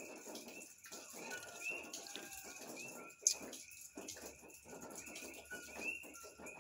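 Faint chorus of many small, repeated high chirping calls from animals calling at night, with one sharp click a little over three seconds in.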